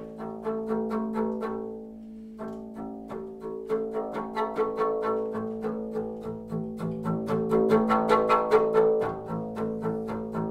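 Double bass played with the bow in fast, short, repeated strokes over a held low note. The attacks break off briefly about two seconds in, then return, growing quicker and louder toward the end.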